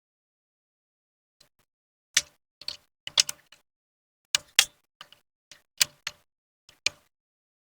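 A run of sharp, irregular plastic clicks and taps, about fifteen of them, starting faintly and growing louder after about two seconds, with silence in between: small plastic ink-tube fittings and parts being handled and pressed into place.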